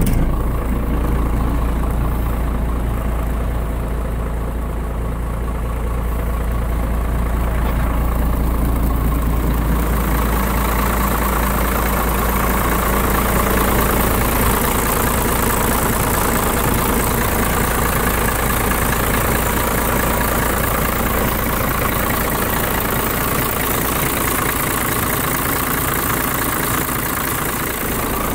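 1987 Ford F800's 7.8-litre inline-six diesel idling steadily; its sound grows brighter about ten seconds in.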